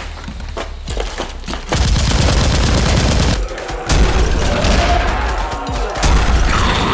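Rapid automatic gunfire sound effects, with scattered shots at first and then dense, continuous firing that grows louder about two seconds in.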